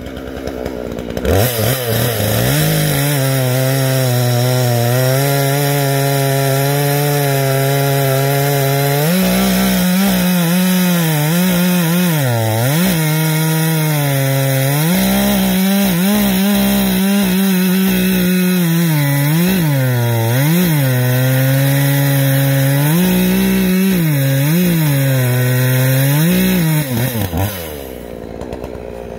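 Gas chainsaw with a 20-inch bar bucking a thick log: idling, then opened to full throttle about a second in and cutting, its engine pitch dipping and recovering again and again as the chain works through the wood. It drops back to idle near the end.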